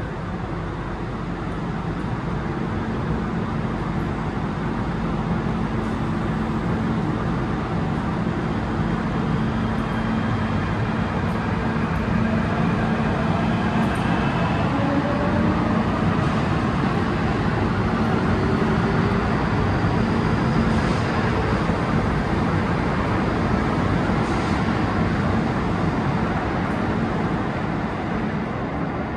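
MTR K-train electric multiple unit pulling out of an underground station. Steady rail rumble gets a little louder through the middle, with rising whines as the train picks up speed.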